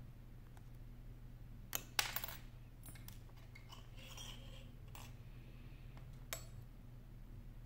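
A handful of short, sharp metal clicks and clinks from small repair tools touching the metal brackets and screws inside an opened iPhone 7. The loudest comes about two seconds in, with a brief ring, and a steady low electrical hum runs underneath.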